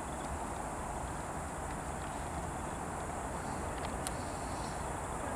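Insects chirring in a steady high band over a low background rumble, with a single sharp click about four seconds in.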